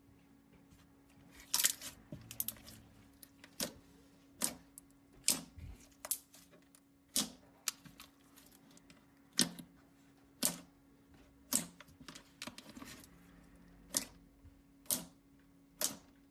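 Slime being pressed and worked by hand, giving sharp clicking pops at uneven intervals, roughly one a second.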